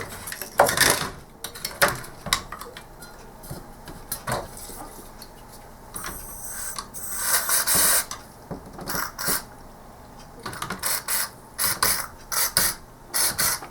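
Aerosol contact cleaner sprayed into the front-panel switches and controls of a Philips CM8833 Mk2 monitor board, with a hiss of about two seconds midway, and the push switches clicked over and over to work the cleaner in.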